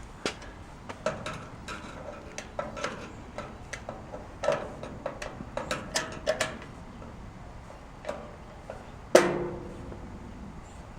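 Irregular small metal clicks and taps of screws and a hand tool on a grill's sheet-metal parts, with one louder metal clang about nine seconds in that rings briefly.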